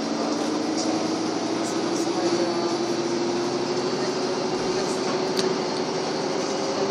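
Cabin noise inside a Karosa B941E articulated city bus on the move: the drivetrain runs with a steady drone and a tone that rises slowly in pitch, with light rattles.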